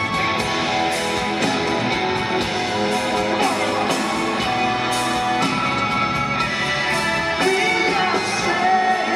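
Live band music from an arena stage: electric guitars, violins and drums playing, with singing.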